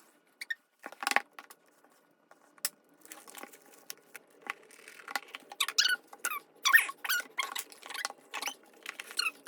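Plastic album packaging being handled and unwrapped: sharp crinkles and clicks with short squeaks, busier after the first few seconds.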